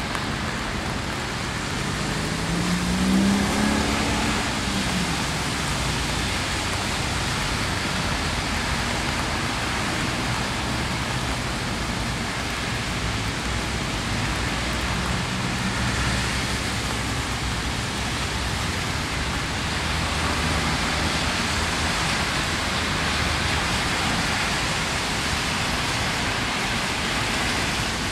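Steady rain falling, with a vehicle's engine rising in pitch as it passes about three seconds in, and a faint hum of traffic underneath.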